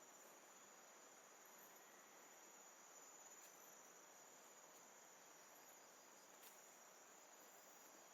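Very faint, steady high-pitched drone of insects in tropical jungle, over a faint hiss.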